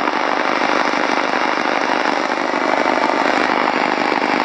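Steady loud noise from a Sony shortwave radio's speaker: the radio is picking up interference from Powerline (PLC) networking over the house mains wiring.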